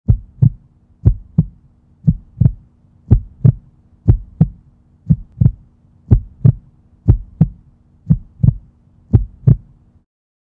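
Heartbeat sound effect: ten double thumps (lub-dub), about one pair a second, over a faint low hum, stopping suddenly near the end.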